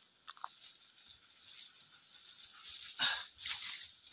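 A couple of light clicks as eggs are set down among others in a wicker basket, then dry straw and grass rustling and crunching under footsteps in flip-flops from about three seconds in.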